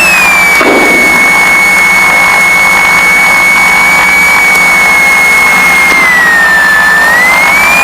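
Piper Seneca engine noise in the cockpit during a right-engine start attempt, with a loud high whine that drops in pitch at the start, holds steady, dips again about six seconds in and then begins to climb. There is a short low rumble about a second in.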